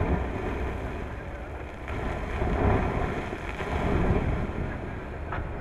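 Rumbling noise of earth and rock pouring from a dragline bucket onto a spoil heap, mixed with machinery and wind on the microphone. It swells twice around the middle.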